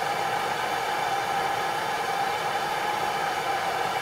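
Steady hissing rush of a propane torch flame heating a copper aeolipile together with the steam jetting from its nozzles as it spins, driving a pair of RC helicopter rotors; the sound holds even throughout, with a faint steady tone running through it.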